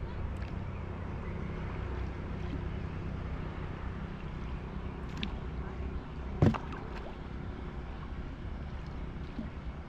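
Small wooden boat being rowed by hand with a long wooden oar on calm water, with a steady low rumble of wind on the microphone. A few light clicks and one sharp knock come about six and a half seconds in.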